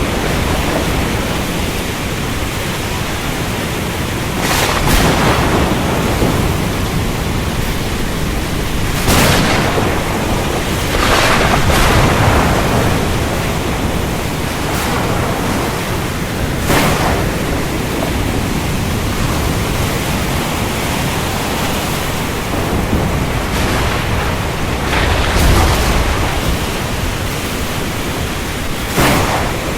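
Thunderstorm: steady heavy rain with about six sharp thunder cracks a few seconds apart over a low rolling rumble.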